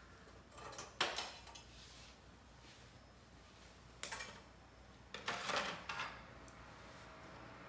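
Metal knocks and scrapes from handling a thick iron griddle plate: a sharp clank about a second in, another at four seconds, and a longer scraping clatter around five to six seconds.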